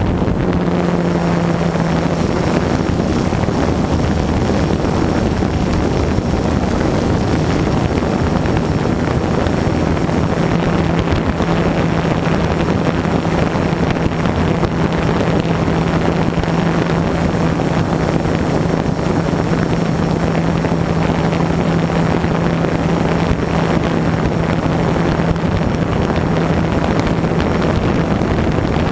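Multirotor drone's motors and propellers humming steadily at one unchanging pitch, with wind rushing over the microphone.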